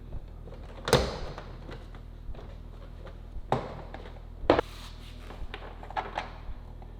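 A series of sharp knocks and clunks from parts being handled. The loudest comes about a second in, two more fall around the middle, and a few lighter taps come near the end.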